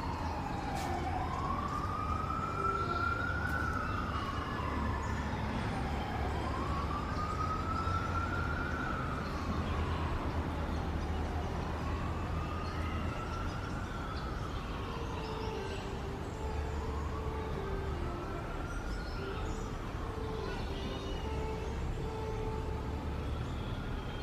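Wailing emergency siren, slowly rising and falling about every five seconds, over a steady low rumble, with faint short high chirps.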